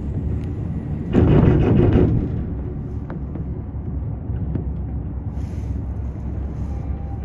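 Steady low rumble inside a descending cable car cabin as it travels along the cable, with a louder rushing noise for about a second starting about a second in and a few faint clicks.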